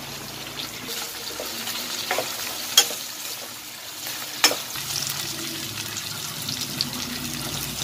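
Sliced onions, green chillies and whole spices sizzling in hot oil and ghee in a nonstick wok while being stirred with a spoon, with two sharp taps of the spoon on the pan, about three seconds in and again about a second and a half later.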